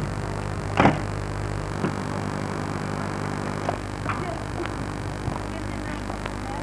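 A car door shutting with one loud thump about a second in, followed by a few fainter knocks and clicks, over a steady low hum.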